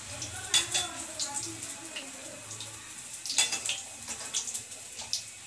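Batter-dipped chillies (mirchi bajji) deep-frying in a kadai of hot oil, a steady sizzle, with two knocks of utensils against the pan, about half a second in and about three and a half seconds in.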